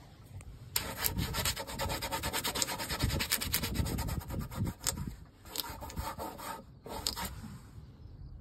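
Close, rapid rubbing and scraping starting about a second in, then a few separate scrapes near the end.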